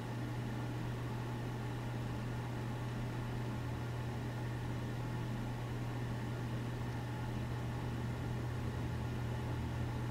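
A steady low hum with an even hiss behind it and no other events: the background noise of the open narration microphone.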